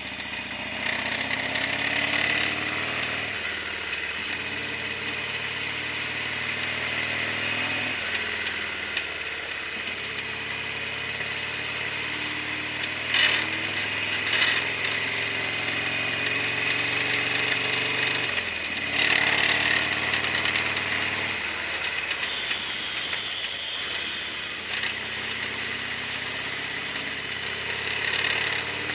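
Harley-Davidson Sportster XL1200R's air-cooled V-twin running while the bike is ridden, its note stepping up and down several times as the rider changes throttle and gears.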